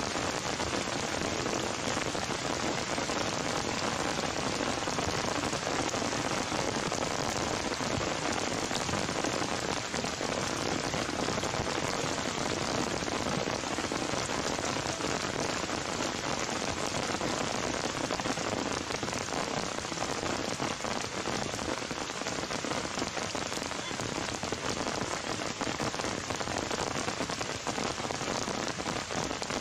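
Heavy rain falling steadily on leaves and the ground.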